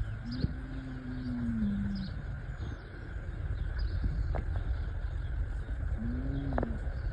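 Bull bellowing: a long low call of about two seconds near the start, rising then falling, and a shorter one about six seconds in, over a steady low rumble.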